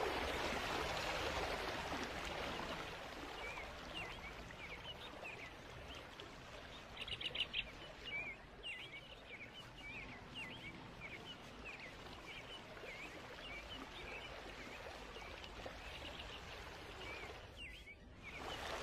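Faint ambience of small birds chirping, short rising and falling calls that start a few seconds in with a quick flurry about seven seconds in, over a steady rushing hiss like running water.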